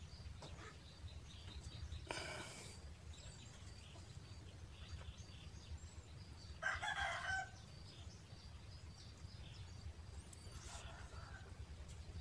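A rooster crows once, about seven seconds in, a short pitched call that is the loudest sound here. Faint brief rustles and a steady low hum sit underneath.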